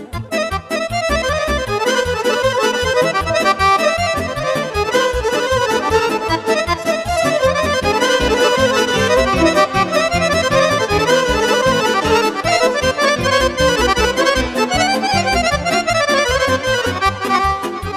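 Instrumental break of Romanian folk party music: a Roland accordion plays the lead melody over keyboard accompaniment with a steady beat.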